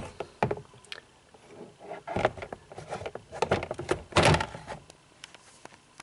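Clear plastic storage bin being handled and slid into place: a series of hollow plastic knocks and short scrapes in clusters, the loudest about four seconds in.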